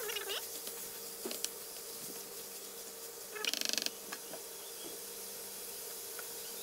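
Seasoned chunks of beef shank sizzling in a nonstick wok, stirred with a spatula at first, over a steady low hum. About halfway through there is a short burst of rapid rattling.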